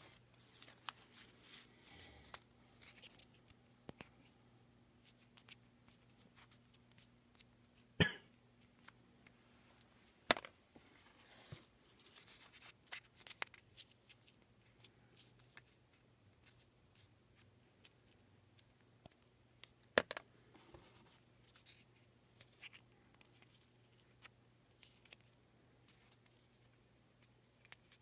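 Small paper raffle tickets being folded and dropped into an empty cardboard box: faint, scattered crisp paper rustling and creasing, with a few sharper clicks.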